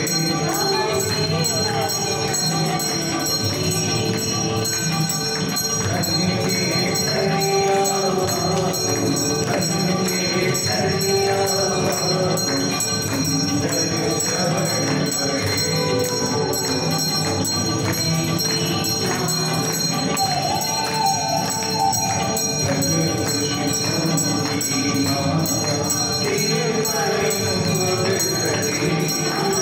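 Hindu temple aarti: devotional singing with bells ringing continuously and jingling percussion, at a steady level throughout.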